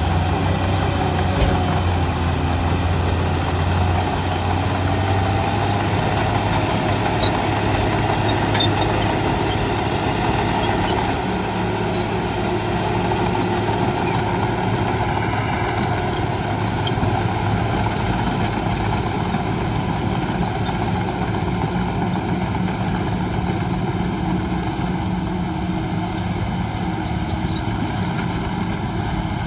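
Diesel engine of a Shantui DH17 bulldozer running steadily under load as it pushes earth, a continuous deep drone whose note shifts after about ten seconds.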